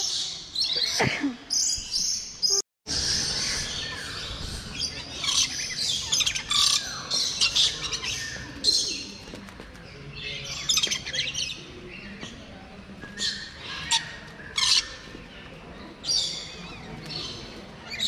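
Many aviary birds chirping and squawking together, short high calls overlapping densely, with a brief dropout a little under three seconds in.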